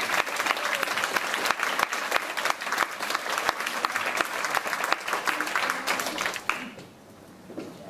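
Audience applauding: many people clapping at once, which dies away near the end.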